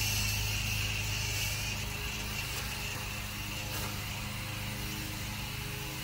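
Hose-fed coil gun sprayer hissing steadily as it sprays coil cleaner onto an air conditioner's outdoor condenser coil, with a low steady hum underneath.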